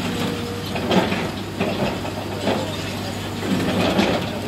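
Long-reach demolition excavator's diesel engine running with a steady low drone while its hydraulic jaws bite into concrete floor slabs, giving several sudden cracks of breaking concrete and falling debris, the loudest about a second in and near the end.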